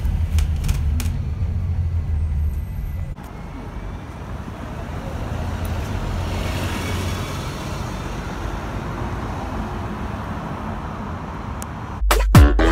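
Inside an ADL Enviro400 MMC Smart Hybrid bus, with the low hum of the bus in motion and a few clicks. After about three seconds it cuts to street level, where a red London bus drives close past: a traffic noise that swells and fades. Music with a beat starts abruptly near the end.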